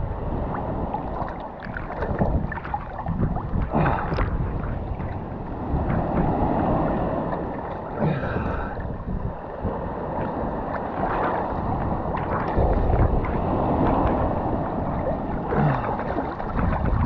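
Shallow surf washing and sloshing around a GoPro held at the water surface, with a steady low rumble of moving water and a few sharper splashes against the camera.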